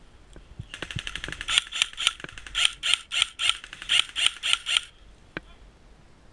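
Airsoft rifle firing a rapid string of shots, about four a second, starting about a second in and stopping after roughly four seconds.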